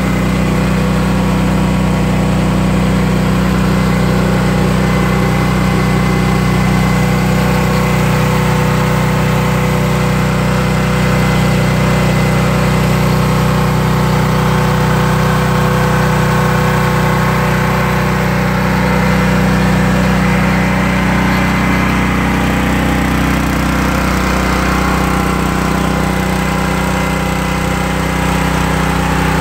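Honda gas engine on a soft wash skid running steadily, turning its directly coupled diaphragm pump.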